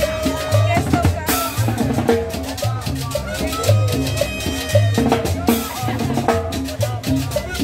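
Live band playing a Latin dance tune: a steady repeating bass line, drums with rimshots, and a melody over them, with a cymbal crash about a second in and again about five seconds in.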